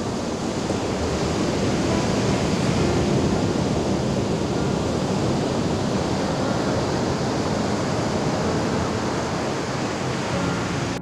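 Ocean surf breaking and washing up a sandy beach: a steady rushing wash of waves.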